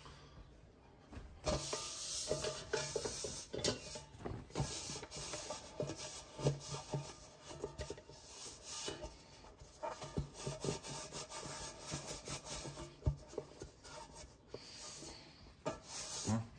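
Cloth rubbing the inside of an air fryer's non-stick pot to dry it: an irregular scratchy rubbing that starts about a second and a half in, with a few light knocks.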